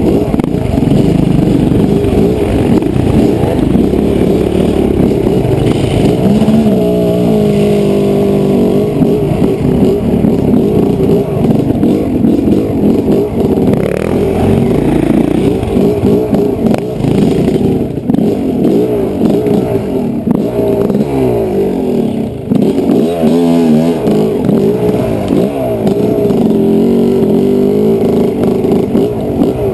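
Yamaha dirt bike engine running under way on a rough trail, its note rising and falling with the throttle, with a couple of clear rev sweeps about seven seconds in and again around twenty-three seconds.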